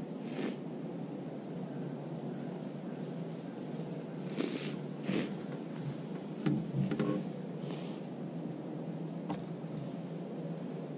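Soft rustling and brushing of a hunter's clothing and gear as he shifts in a treestand, with a few faint high chirps and small knocks over a steady low hiss.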